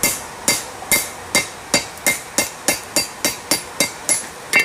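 Blacksmith's hand hammer striking a hot railroad spike on the edge of the anvil to split apart the horns of a ram's head. About fourteen blows, each with a brief metallic ring, quickening from about two to three a second.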